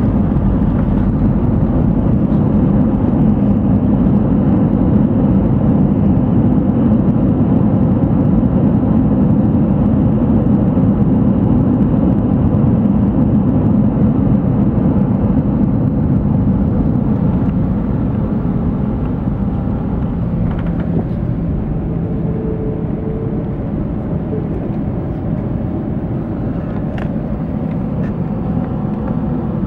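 Cabin noise of an Airbus A320 on its landing rollout, heard from a window seat over the wing: a loud, steady roar of engines and rushing air with the ground spoilers up, easing off gradually after about seventeen seconds as the aircraft slows.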